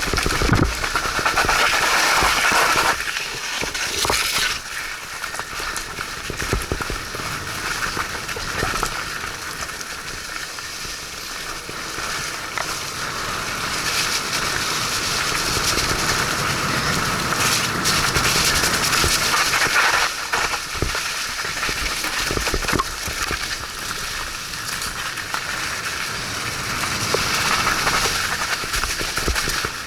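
Mountain bike riding a wet, muddy trail: a steady rush of tyre and trail noise, with scattered crackles and clicks from the tyres and bike going through mud and water.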